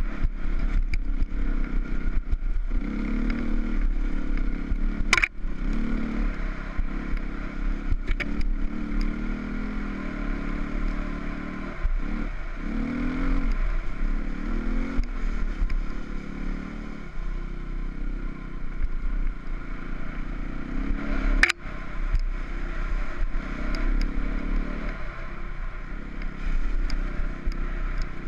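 Enduro motorcycle engine running under load, its revs rising and falling with the throttle, with two sharp knocks, one about five seconds in and one about three-quarters of the way through.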